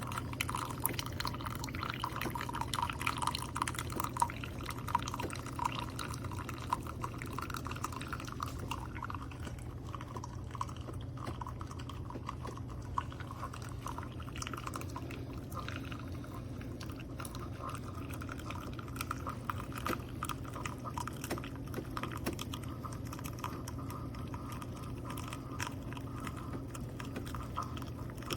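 Keurig K-Supreme single-serve pod coffee maker brewing: a steady low pump hum under coffee streaming and dripping into a cup.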